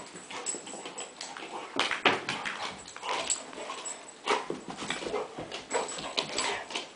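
A dog whimpering while it rummages through its presents, with irregular rustling and clicking.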